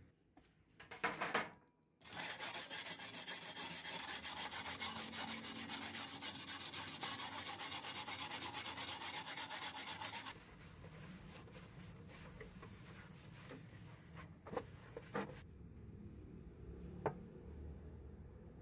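Hand wire brush scrubbing rust off a sheet-metal cover in rapid back-and-forth strokes, loud for about eight seconds, then fainter scraping with a few sharp knocks.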